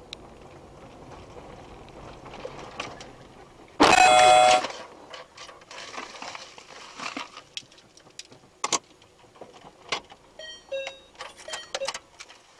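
Car on a dirt track running with a low rumble, then about four seconds in a head-on collision with a Lada: a loud, short crash with a horn blast sounding through it. Afterwards scattered knocks and clicks, and a few short beeps near the end.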